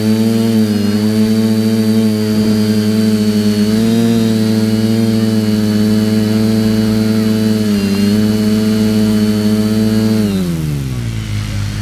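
TBS Discovery quadcopter's electric motors and propellers whining steadily, heard from its onboard camera, the pitch wavering slightly with throttle. About ten seconds in, the pitch falls steadily as the motors spool down.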